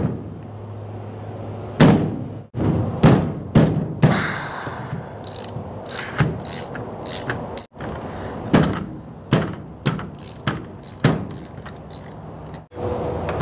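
Socket wrench and hand tools working the bolts off a diesel's vacuum pump/power steering pump assembly: sharp metal clicks and knocks, with a quick run of clicks about two-thirds of the way in.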